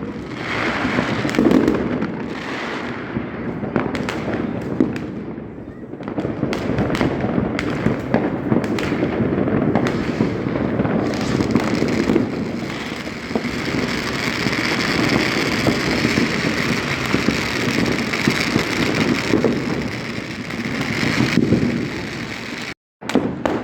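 Fireworks and firecrackers going off in a dense, continuous barrage of bangs and crackling, with many overlapping explosions. The sound cuts out completely for a moment near the end.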